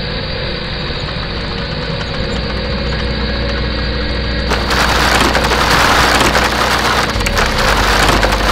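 Industrial plant machinery running with a steady low hum. About four and a half seconds in, a much louder clattering noise starts abruptly over it.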